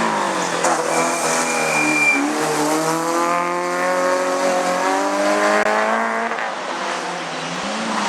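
Race car engine at full throttle on a hillclimb. The pitch climbs steadily for several seconds and then holds, with a brief high squeal about a second in.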